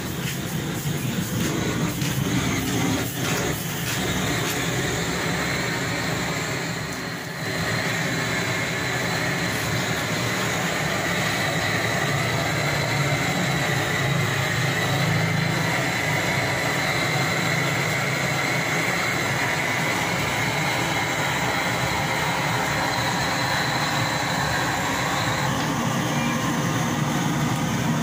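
Pressurized blowtorch burning with a steady rushing hiss as it singes the hair off a slaughtered goat's carcass; the flame noise dips briefly about seven seconds in.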